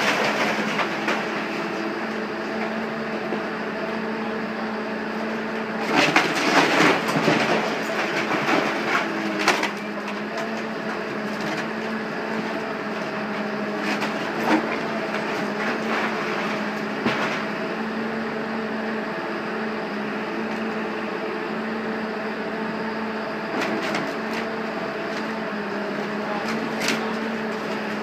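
Caterpillar 315D hydraulic excavator's diesel engine running with a steady drone while it tears into a building. Wood, brick and debris crash and clatter down in bouts, the longest from about six to ten seconds in, with single crashes later.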